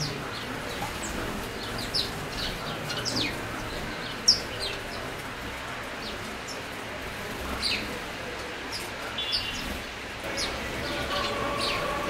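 A flock of house sparrows chirping, with short scattered chirps throughout and one sharp click about four seconds in.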